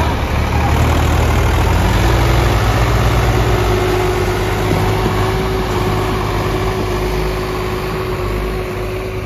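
Tractor diesel engine running under load as it pulls a fully loaded sugarcane trolley past, a steady low rumble that fades slightly toward the end. A steady whine comes in about two seconds in.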